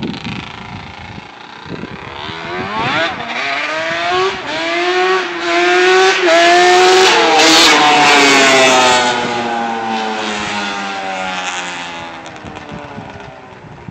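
Yamaha Banshee quad's twin-cylinder two-stroke engine, freshly rebuilt, revving higher in several steps as it approaches, loudest as it passes about seven seconds in, then dropping in pitch and fading as it rides away.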